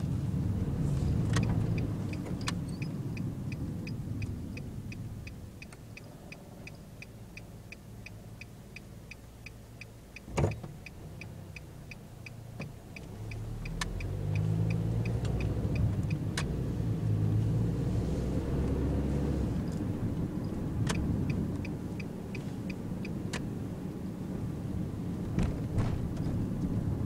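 Engine and road noise inside a Nissan NV200 van, quieter while it waits and rising as it pulls away about 14 seconds in, with the turn-signal indicator ticking steadily about twice a second for most of the time. Several sharp knocks break through, the loudest about 10 seconds in.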